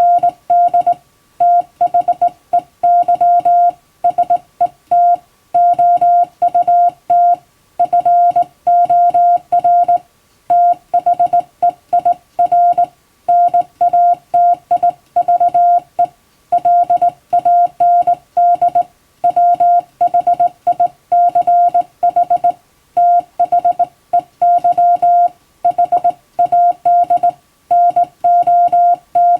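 Hand-sent Morse code: a single steady beep keyed on and off in short dits and longer dahs, with brief pauses between letters and words, sending English-language telegram practice text.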